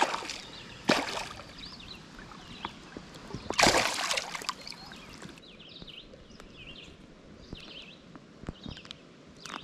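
Northern pike thrashing and splashing at the water's surface as it is brought to hand. There are several sudden splashes, the loudest and longest about three and a half seconds in, then quieter water sounds.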